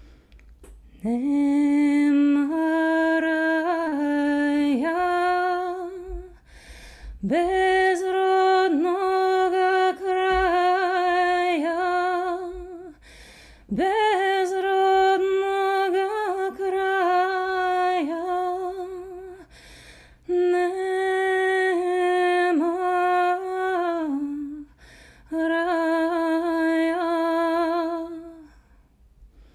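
A woman singing a Georgian song solo and unaccompanied, in five long phrases of held, slightly wavering notes, each broken off by a short pause for breath.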